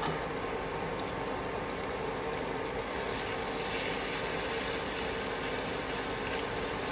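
Marinated prawns sizzling in a little hot coconut oil on a flat tawa: a steady frying hiss with scattered small pops as more prawns go into the oil, and a brief tap at the very start.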